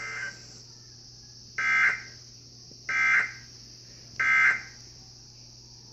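Emergency Alert System end-of-message data tones: three short, identical warbling bursts about a second apart, which signal that the alert broadcast is over. Under them runs a steady mains hum and hiss.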